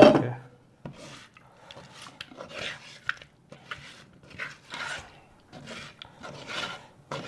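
Fish pieces being mixed and rubbed by hand with a spice marinade in a bowl: uneven rubbing and scraping, with a sharp knock right at the start.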